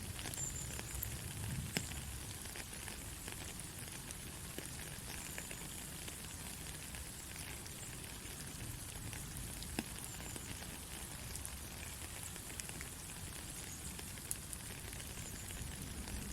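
Soft, steady rain falling with a hiss, scattered drops ticking on surfaces and a couple of sharper single drips, over a low rumble.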